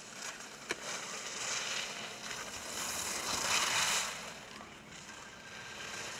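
Ski edges hissing and scraping on hard-packed snow through carving turns, swelling loudest about three to four seconds in, with one sharp click near the start.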